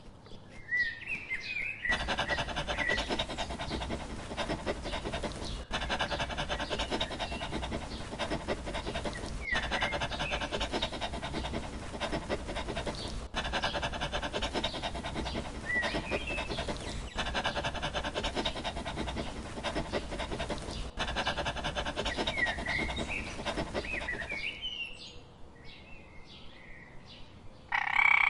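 Birds chirping in short gliding calls. About two seconds in, a dog starts panting rapidly right at the microphone and keeps on until near the end, with bird chirps over it. A frog begins croaking at the very end.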